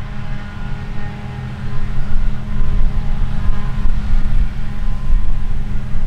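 Claas Lexion 8900 combine harvester and Fendt 1050 tractor running while harvesting wheat: a steady, loud machinery drone with a deep rumble underneath.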